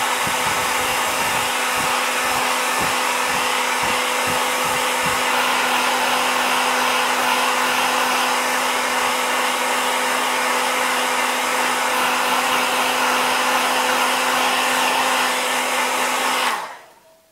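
Handheld hair dryer running steadily, a loud rush of air over an even motor hum, with a few low gusty thumps in the first few seconds. It switches off near the end.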